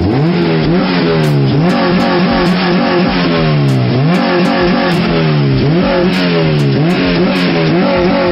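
Honda Civic Type R EP3's K20 four-cylinder engine, freshly swapped into the car, being revved in repeated throttle blips: the revs rise quickly and fall back about once a second.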